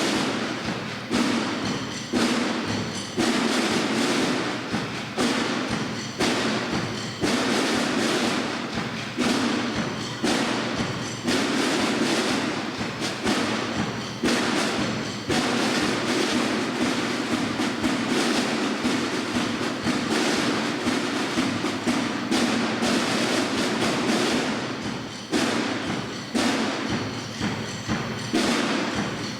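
A band playing with an anvil struck about once a second, each metallic strike ringing and fading before the next, over sustained band sound.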